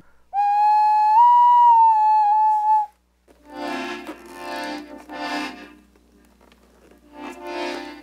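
A small hand-held wind instrument blown in one held whistle-like note, stepping up in pitch about a second in and sagging slightly before it stops. After a short break, a piano accordion plays two swelling chords, then another near the end.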